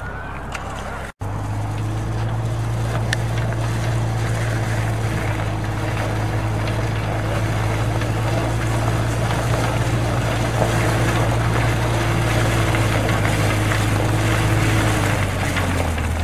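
Wheel loader's diesel engine running steadily under load, pushing a RAIKO ice-breaker roller that breaks up the ice on an iced-over pitch, with rough noise from the roller over the steady engine hum. The sound starts after a brief break about a second in, and the engine note drops slightly near the end.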